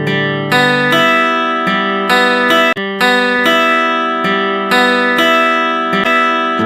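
Background music on acoustic guitar: strummed and plucked chords in a steady rhythm, with a brief drop-out a little under three seconds in.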